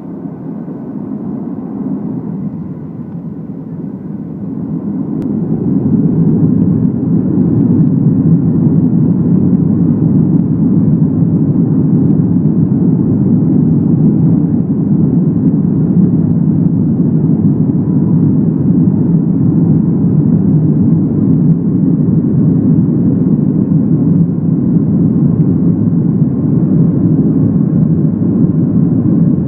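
Boeing 737-700's CFM56-7B turbofan engines spooling up for the takeoff roll, heard inside the cabin over the wing. The drone swells sharply about four to six seconds in, then holds steady and loud, with most of its energy low.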